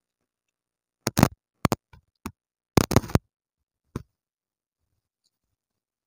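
Eating noises close to a clip-on microphone while rice and chicken curry are eaten by hand: short sharp clicks and mouth smacks in a few small clusters, the busiest cluster about three seconds in, with silence between them.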